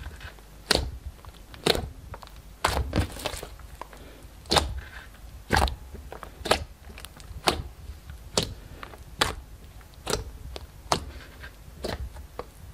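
Fingers pressing and poking into a flat sheet of clear glossy slime, making sharp wet clicks and pops about once a second.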